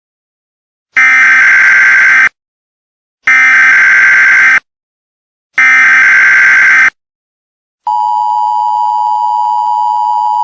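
Emergency Alert System tones: three loud bursts of SAME header data, each a harsh digital warble lasting just over a second, then the steady two-tone EAS attention signal starting about eight seconds in.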